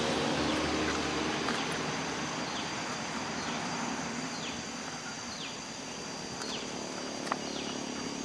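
Road traffic noise from a passing vehicle fading away. Over it, a bird repeats a short falling whistle about once a second from a couple of seconds in.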